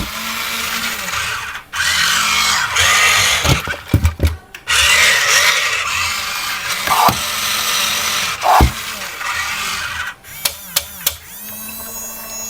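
Small electric gear motors of a toy RC construction vehicle whirring in bursts, starting and stopping every few seconds, with a few sharp plastic clicks.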